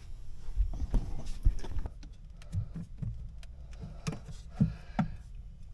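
Water maker hoses and fittings being handled and reconnected by hand: scattered knocks, clicks and rubbing of hose against fittings, with a low rumble beneath.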